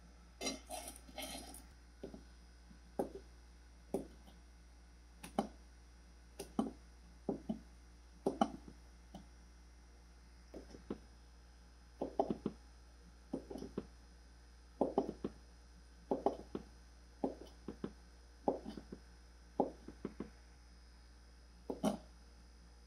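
A kitchen knife chopping on a plastic cutting board, cutting cooked duck meat: sharp knocks, single or in quick pairs, about a second or so apart, with a quick run of strikes near the start.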